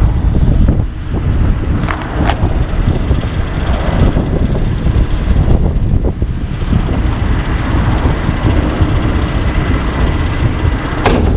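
Heavy truck's diesel engine running steadily close by, with a couple of sharp knocks about two seconds in and another near the end.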